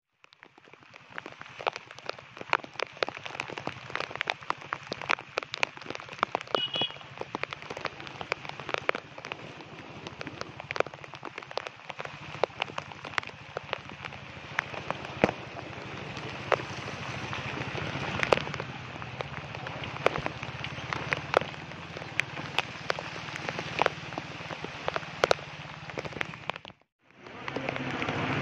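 Heavy monsoon-cyclone rain falling, with a dense patter and many sharp taps of drops landing close to the microphone over a low steady hum. The sound cuts out briefly near the end and comes back louder and lower.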